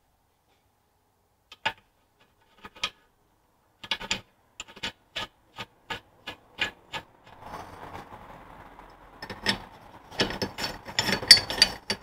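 Short metallic clicks, about two a second, as the hub bearing adjusting nut is turned by hand onto the threaded stub axle of a Land Rover Series 2 rear hub, starting about a second and a half in. From about seven seconds a light scraping joins them, and near the end a steel tube box spanner is fitted over the nut with a cluster of louder metal clinks.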